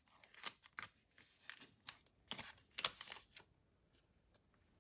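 Faint crinkling and tearing of a foil booster pack wrapper being opened by hand, a run of short rustles and snaps that stops about three and a half seconds in.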